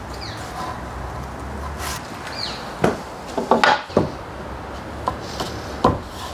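Softwood door-frame post knocked several times with a fist to set it in position, sharp wooden knocks starting about three seconds in.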